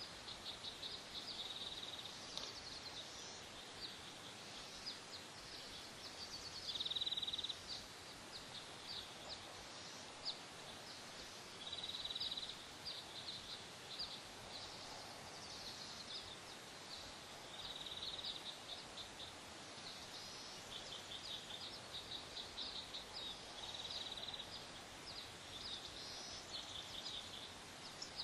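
A small songbird singing short high trilled phrases, repeated every few seconds, over a steady background hiss.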